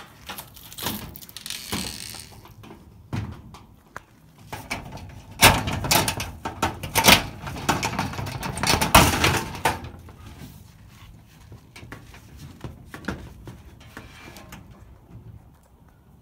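Shed door being unlocked and opened: a run of clicks, knocks and rattles, loudest and densest in the middle, thinning to a few light clicks near the end.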